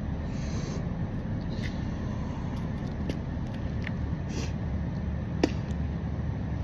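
Steady low background rumble with a few small clicks and short rustles, one sharper click about five and a half seconds in.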